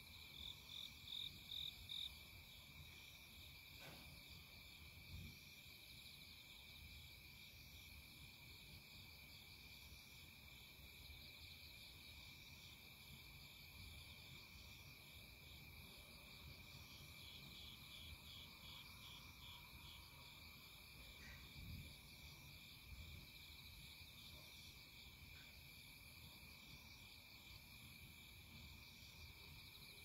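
Insects chirping faintly: one steady high trill runs on throughout, and a higher, pulsing chirp at about three to four pulses a second comes in short runs near the start and again past the middle.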